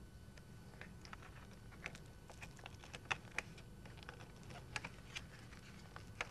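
Faint, irregular small clicks and taps of steel spring clips being pushed in under the edge of a metal sectional picture frame against the backing boards, the loudest two coming close together about three seconds in.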